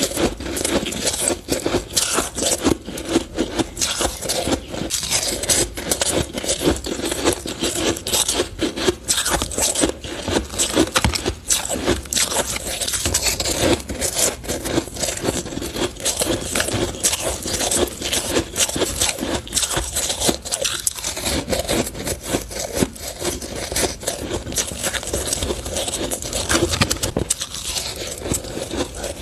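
Crushed purple ice being bitten and chewed close to a clip-on microphone: dense, continuous crunching and crackling.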